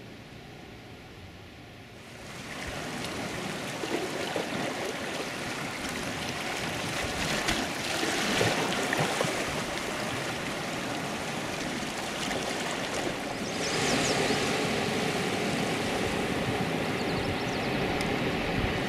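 Moving sea water: a steady rushing wash of current and small waves along a rocky shore. It comes in about two seconds in and gets louder in steps partway through.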